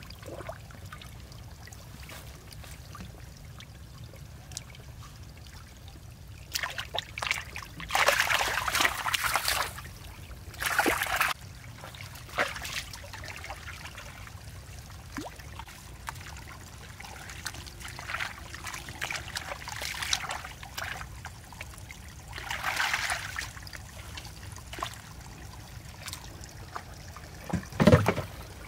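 Hands and bare feet splashing and stirring shallow muddy water in bursts, with water trickling between them. A short, loud knock comes near the end.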